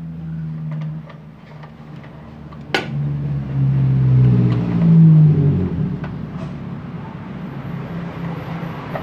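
A motor vehicle engine running, with a steady low drone that rises in pitch and swells between about three and five seconds in, then settles back. There is a sharp click about three seconds in.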